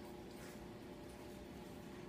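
Quiet room tone: a steady faint hum with a few soft ticks.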